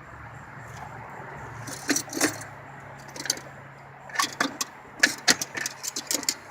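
Irregular metallic clicks and clinks from a ratchet and socket on a rear brake caliper bolt, coming in a cluster over the last couple of seconds. The bolt turns without loosening because the nut behind it is spinning with it.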